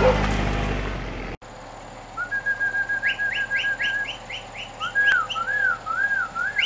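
A car engine running, cut off abruptly about a second and a half in. Then a person whistles to call the dogs: a quick run of short notes on one pitch, a row of rising slurs, and a few looping up-and-down notes.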